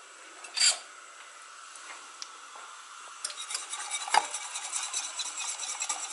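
Brief rattle of kitchen utensils being pulled from a metal utensil holder, then a wire hand whisk beating a creamy sauce in a stainless steel saucepan. From about three seconds in the whisk wires click fast against the pan, with one sharper knock a second later.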